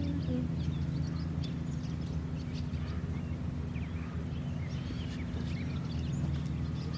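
Small birds chirping, many short scattered calls, over a steady low hum.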